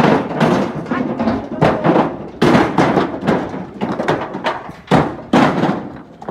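Heavy rough stones dropped and set down one after another, a sharp rock-on-rock knock every half second to a second.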